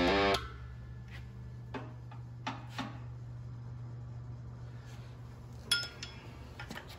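A few scattered light metallic clinks and taps of a hammer and punch on a Ford Model A clutch pressure plate, staking the finger adjusting nuts. The clearest clink comes near the end, over a steady low hum.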